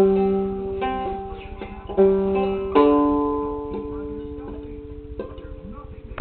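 Handmade Anglo-Saxon lyre, its strings plucked a few at a time. Each note rings on and slowly dies away, with the strongest plucks at the start, about two seconds in, and just under three seconds in.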